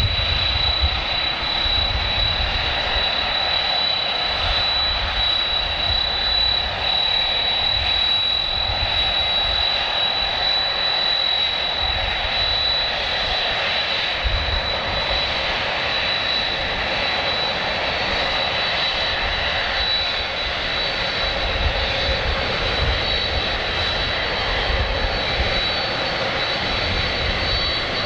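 Jet airliner engines running steadily, with a sustained high-pitched whine over a broad rush of engine noise and a low, uneven rumble.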